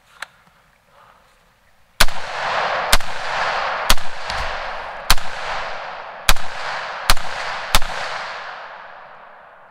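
Seven semi-automatic rifle shots from a .308 PSA AR-10 fired through a 7-inch aluminium baffle-style muzzle brake. The shots come about a second apart, starting about two seconds in. Each is really loud and followed by a long rolling echo that dies away after the last shot.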